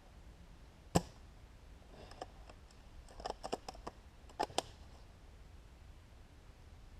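One loud, sharp click about a second in, then a scatter of lighter clicks and snaps, several in quick succession, between two and five seconds in.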